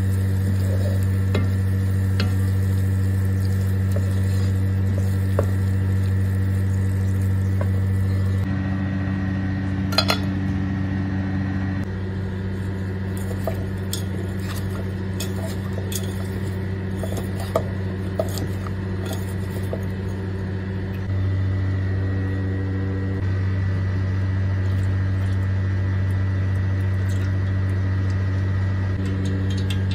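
Spoon and hands working in metal cooking pots: scraping and stirring, with a few sharp clinks against the metal, over a steady low hum.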